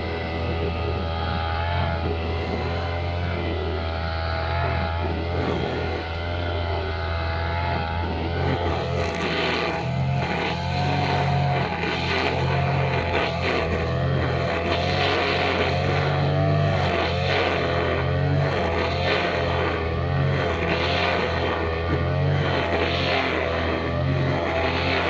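Small two-stroke brushcutter engine running at high revs, its pitch wavering up and down as the load changes.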